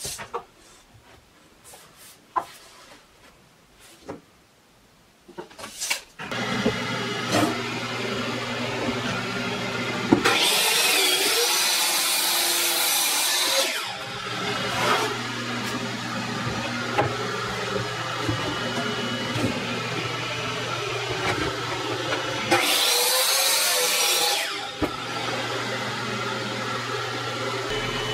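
Hitachi sliding miter saw spinning up and cutting through a solid cedar board twice, each cut a loud high-pitched burst lasting two to three seconds. A steady hum, the dust extractor hooked to the saw, starts about six seconds in and runs under both cuts; before it, light clicks and knocks of the board and tape measure being handled.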